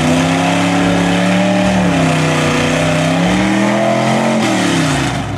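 Lifted mud truck's engine revving hard under load as the truck churns through deep mud, its pitch rising and falling several times.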